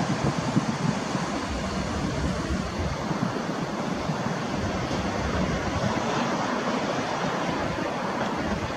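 Class 170 Turbostar diesel multiple unit approaching slowly, its engines and wheels making a steady rushing rumble mixed with wind on the microphone.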